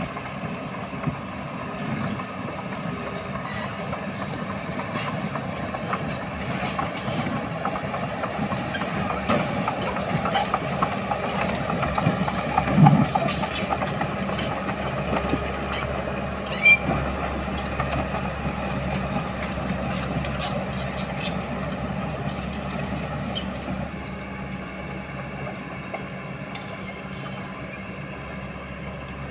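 Diesel engine of tracked earthmoving equipment running under work, with high-pitched squeals and metal clanks from the crawler tracks and stone. The squealing comes and goes, with the loudest squeals and knocks about halfway through, and the noise drops somewhat near the end.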